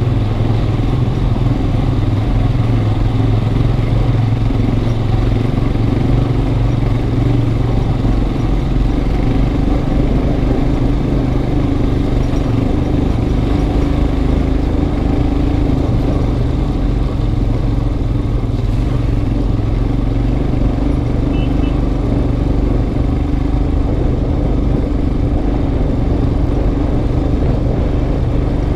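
Motorcycle engine running steadily at an even pitch, heard from the rider's own bike while riding a rough dirt track.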